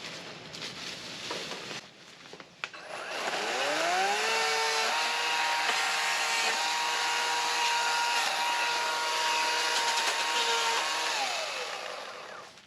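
Power saw speeding up with a rising whine, running at a steady high pitch for about six seconds, then winding down. It is being used to cut back a tree branch.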